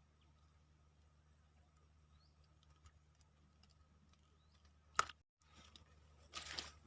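Faint outdoor background with a steady low hum and a few faint short chirps. A single sharp click about five seconds in, followed by a brief dead gap, then a short rustling noise near the end.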